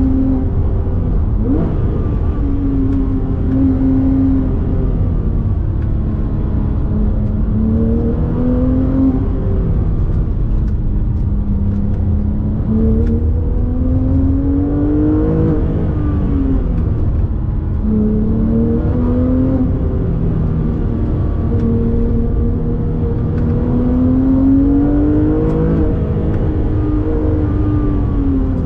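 Porsche 997 GT3 RS's naturally aspirated flat-six engine, heard from inside the cabin, pulling through the gears. Its pitch climbs under throttle and falls back several times, over a steady low road rumble.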